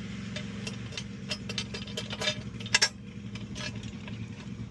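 Light metal clicks and clinks as the upper intake manifold and its bolts are set down onto the plenum spacer, ending with two sharp clicks close together near three seconds in, over a steady low hum.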